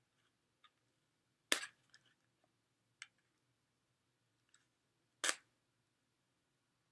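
Sharp clicks and snaps of fingernails picking at the tape sealing a small cosmetics box: a loud click about a second and a half in, a faint one a little later, and another loud one near the end.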